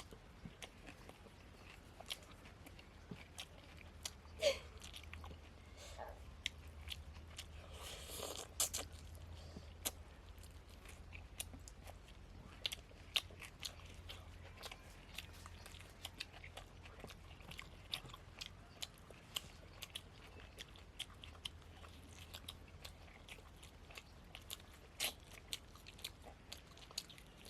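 People chewing and eating poori with mutton curry: scattered wet mouth clicks and smacks of fast chewing, with a few louder ones.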